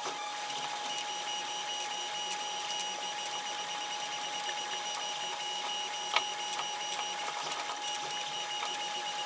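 3D printer's stepper motors running through a print at normal speed: a steady whine with a pulsing higher tone and scattered ticks, and one sharper click about six seconds in.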